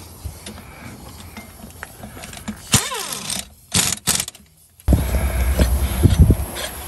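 Handheld impact wrench running shorter lug nuts onto a wire-wheel adapter hub. There are brief spins with a rising and falling whine around the middle, then a longer, louder run of rapid hammering from about two-thirds in.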